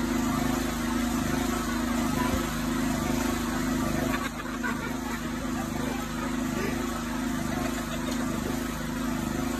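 Small petrol engine of a walk-behind concrete power trowel running steadily at constant speed, with its blades spinning on wet concrete. It gets a little quieter from about four seconds in.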